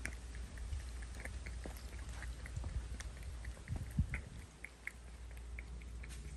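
Cats chewing and lapping wet sardines from a tin can: wet, sticky clicks and smacks, several a second. A low thump comes about four seconds in.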